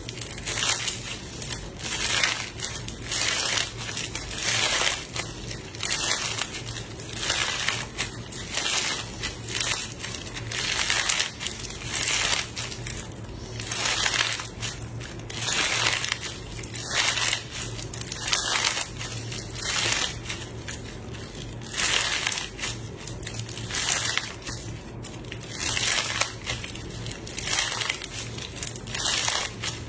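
Crunchy slime pressed and squeezed by hand in a cup, crackling and popping in repeated bursts about once a second.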